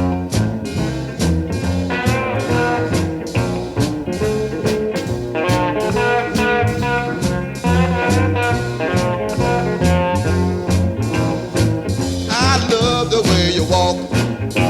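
Upbeat blues song with a steady beat and a moving bass line.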